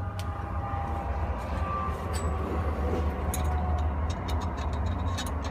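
Steady low mechanical hum, like an engine running near the job site. About three seconds in, a run of light, sharp metallic clicks starts as bolts are worked into a pipe fitting's compression flange.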